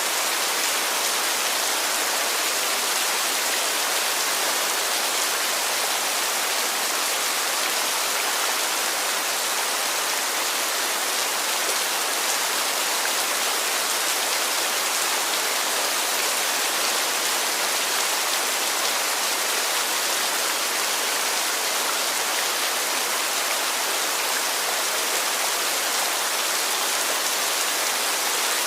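Heavy rain falling: a dense, steady hiss.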